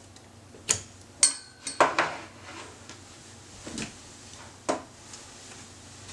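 Half a dozen sharp clicks and knocks at uneven intervals, several close together between one and two seconds in, like small hard objects being handled.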